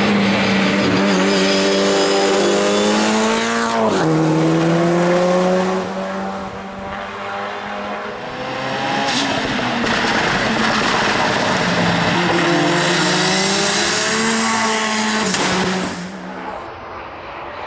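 Touring race car engine at full throttle, its revs climbing and dropping sharply at an upshift about four seconds in. The sound fades after about six seconds, then builds again with revs climbing and another sharp drop near the end.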